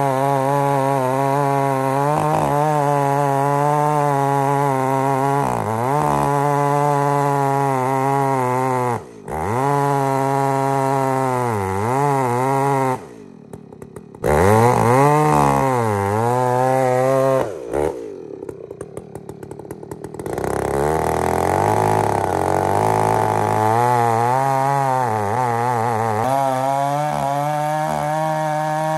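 Stihl 880 two-stroke chainsaw with a 50-inch Cannon bar cutting into a large fir trunk, the engine running hard under load, its pitch sagging and recovering as it bogs in the cut. Near the middle it twice drops briefly to a low idle and revs back up before cutting on.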